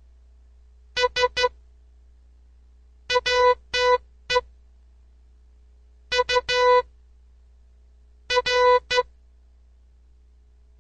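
Morse code practice tones: a steady electronic beep near 500 Hz keyed in short dots and longer dashes, sent as four letters spaced about two seconds apart.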